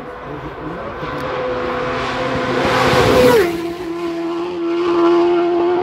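Racing motorcycle passing at full speed on the Isle of Man TT course. Its steady high engine note builds to a peak, drops sharply in pitch about three and a half seconds in as it goes by, then carries on lower as it pulls away.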